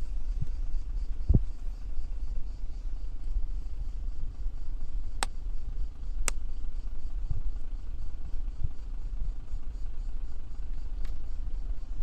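A vehicle engine idling as a steady low rumble, with two sharp clicks about five and six seconds in.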